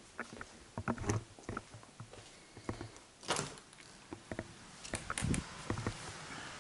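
Irregular footsteps and knocks of someone walking through a room and out onto a stone patio, with a brief rushing scrape about halfway through as a glass patio door is opened.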